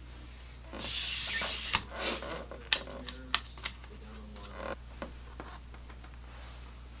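Handling noise close to the microphone: a rustling hiss lasting just under a second, then a handful of sharp clicks and knocks over the next two seconds as things are moved about.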